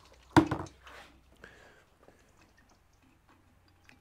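Metal clicks and clinks from a valve spring compressor and valve spring being worked on a cylinder head while the collets are fitted. One sharp clank about half a second in, then scattered light clicks.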